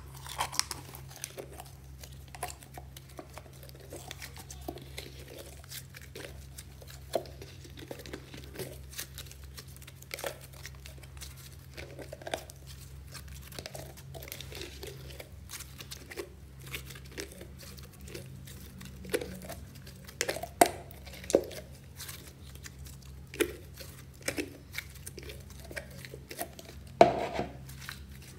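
Soft slime being pulled out of a plastic jar and kneaded by hand in a glass dish: wet squishing with many small sticky clicks and crackles, and a few louder pops in the last third.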